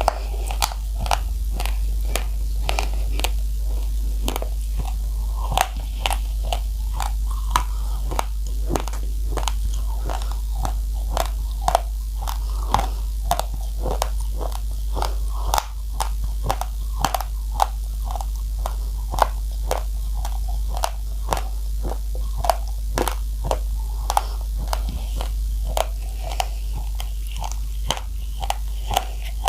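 Uncooked rice grains being bitten and chewed close to the microphone: a steady run of sharp crunches, two to three a second, over a constant low hum.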